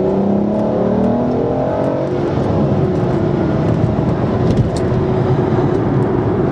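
2005 Aston Martin DB9's 5.9-litre V12 accelerating, heard from inside the cabin. The engine note rises for about two seconds, then settles to a steady cruise with road noise.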